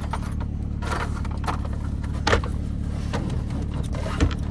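Steady low hum inside a running car's cabin, with about six scattered clicks and light rattles.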